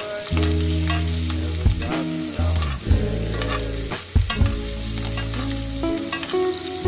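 Foaming butter sizzling in a cast-iron skillet around a searing steak while a metal spoon scoops and bastes it, clinking and scraping against the pan. Steady background music with low sustained chords plays underneath.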